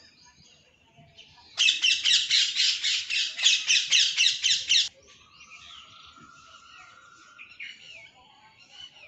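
Rose-ringed parakeet screeching: a loud run of harsh, rapid calls, about four a second, lasting some three seconds from a second and a half in, followed by softer scattered bird calls.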